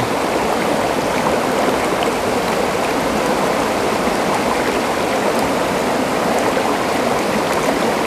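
Waterfall stream rushing steadily, an even wash of water noise with no change.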